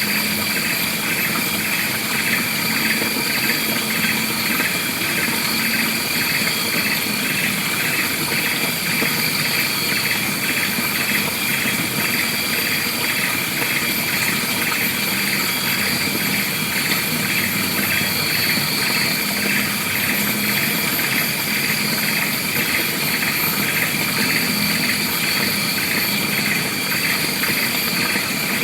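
Continuous insect chorus: a dense, even drone with a fast-pulsing buzz and a steady high whine layered over it, unchanging throughout.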